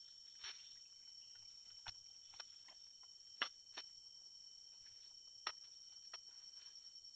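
Faint steady high-pitched drone of forest insects, with about seven light clicks and taps scattered through it.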